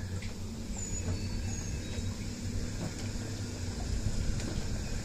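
Minn Kota 12 V, 45 lb thrust trolling motor running in the water at about half speed under a PWM speed controller: a steady low hum. It gets a little louder near the end as the speed is turned up.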